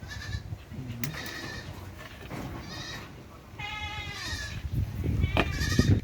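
Several drawn-out bleating animal calls, a few seconds apart, some falling in pitch, over low rumbling background noise.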